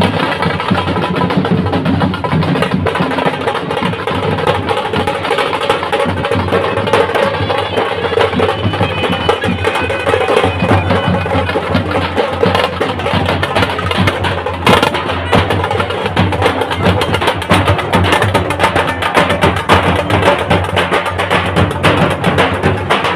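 Dhol drums beating a fast, dense rhythm, with a shehnai playing a wavering melody over them.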